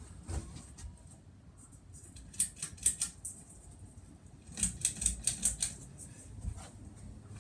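Harbor Breeze Caratuk River 52-inch ceiling fan running with a steady hum, broken by two bursts of rapid clicking and rattling, about two seconds in and again near five seconds, as its pull chain is tugged.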